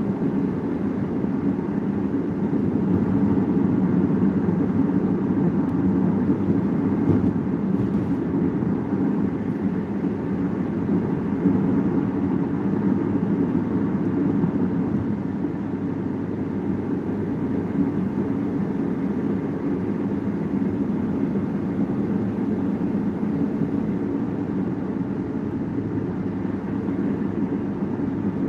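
Steady road and engine noise heard inside the cabin of a car cruising along a highway.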